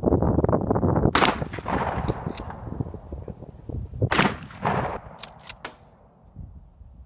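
Gunshots: a sharp shot about a second in, another about three seconds later followed closely by a weaker one, over a loud rushing noise that fades away.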